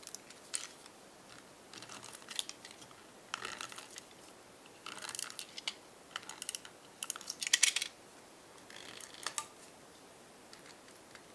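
Double-sided tape pulled in short pieces from a handheld tape dispenser and pressed onto paper strips: several quick crackling clusters of clicks a second or two apart.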